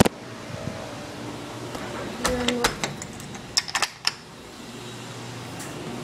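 Air-conditioning system running with a steady fan hiss, and a low hum that grows louder in the last second or two. A sharp knock comes right at the start, and a few clicks and knocks follow around the middle.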